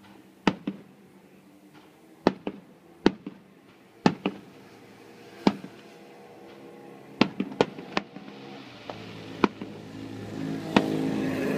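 Aerial firework shells bursting overhead: about fifteen sharp bangs at uneven intervals, several in quick pairs. A steady low rumble builds up over the last few seconds.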